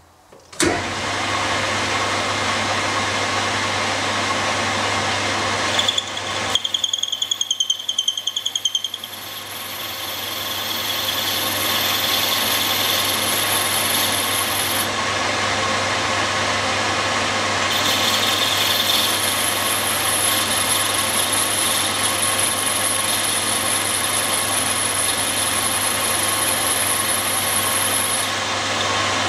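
Lathe starting up and turning down a workpiece to dimension: steady motor hum under the hiss of the cutting tool. From about six to nine seconds in there is a wavering high squeal with rapid pulsing as the tool cuts, then a steady high whine to the end.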